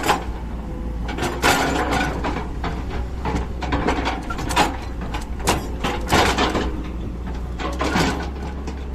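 Tata Hitachi EX210 excavator's diesel engine running with a steady low hum, while the bucket gives repeated knocks and scrapes as it levels soil.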